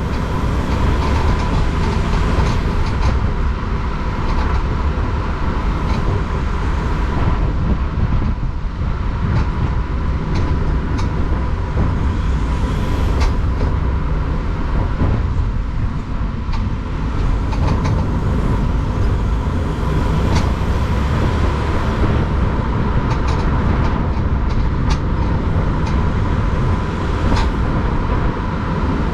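VW T6 van on the move: a steady low rumble with a thin, high, steady whine above it and scattered sharp clicks. This is the annoying noise whose source the owner cannot find; two service centres found the bearings and suspension fine.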